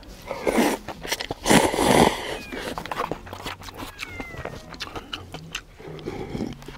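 Cup noodles being slurped and chewed, with a loud slurp about half a second in and a louder one about a second and a half in, and small wet mouth clicks between.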